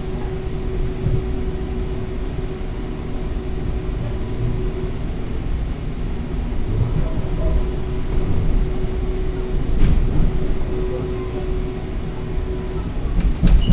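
Metra commuter train running on the rails: a steady low rumble with a steady hum, and a few sharp knocks about ten seconds in and near the end.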